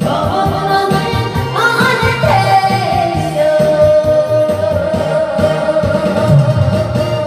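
Female voice singing a Korean trot song over a band backing; about three seconds in she settles into one long held note.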